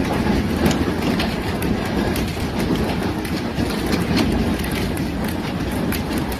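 Heavy hail falling: a steady dense rush of noise packed with sharp ticks and clatters of hailstones striking hard surfaces.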